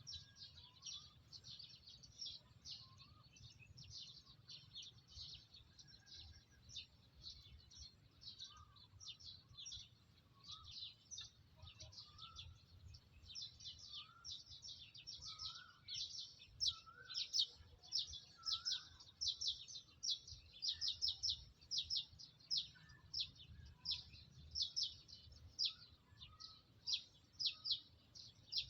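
A bird chirping in a rapid, even series of short high-pitched notes, several a second, louder from about halfway through. A few fainter, lower calls come in now and then.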